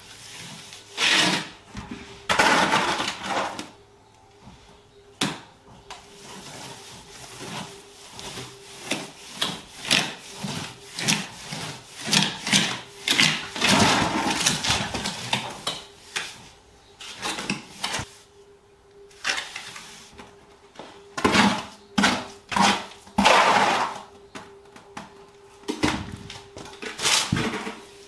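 Trowel scraping and spreading render across a wall in irregular strokes, with sharp knocks of the tool between them.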